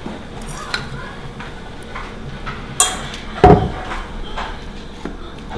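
Kitchen clatter: scattered light clinks and knocks of dishes and utensils, with a sharp knock about three seconds in and a louder thump just after it.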